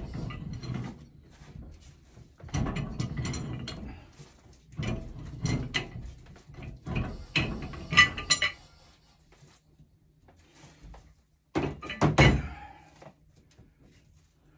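Two large pipe wrenches straining on a threaded fitting of a 2-inch steam main pipe: bouts of scraping and creaking metal as the joint is worked loose, with sharp knocks about eight and twelve seconds in.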